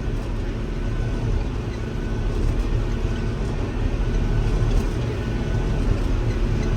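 Tractor engine running steadily under load, pulling a large square baler, heard as a continuous low rumble from inside the cab.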